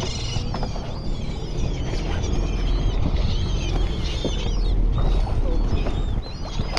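A flock of seabirds calling over the water, many short overlapping squawks, above the low steady rumble of a fishing boat's motor.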